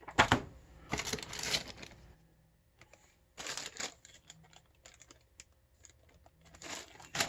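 Computer parts and their packaging handled by hand: several short bursts of crinkling and rustling, with scattered small clicks and taps between them.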